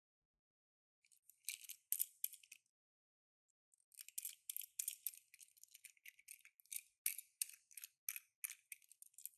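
Toy packaging being handled and opened: crisp crackling, clicking and rattling in short clusters, a first bout about a second in, then almost without a break from about four seconds in.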